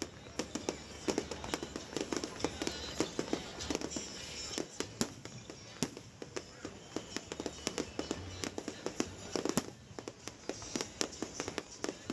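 Fireworks display: a dense string of sharp bangs and crackles, several a second, with brief lulls.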